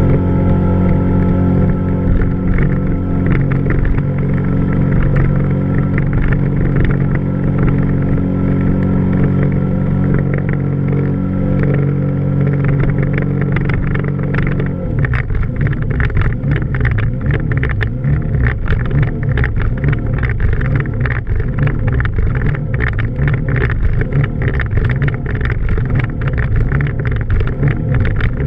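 Mazda 13B twin-rotor rotary engine of a mini jet boat running at steady revs, then about halfway through its steady note abruptly breaks up into an uneven, choppier sound.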